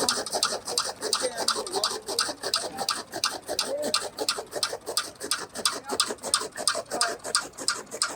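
Rapid rhythmic scraping or rasping, about six strokes a second and very even, with pigeons cooing now and then.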